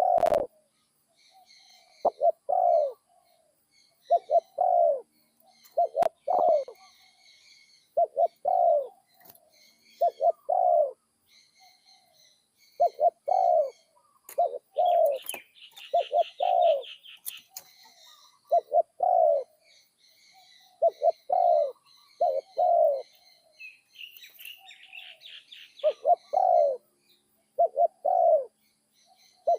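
Spotted dove cooing over and over, a doubled low coo phrase about every two seconds. Small birds chirp faintly in the background, with a fast higher trill twice, around the middle and again a few seconds later.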